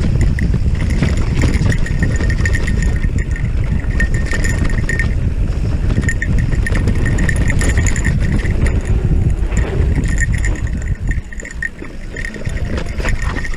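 Electric mountain bike ridden along a dirt trail: wind buffeting the microphone and tyres rumbling over the ground, with a thin high whine coming and going. The rumble eases a little near the end.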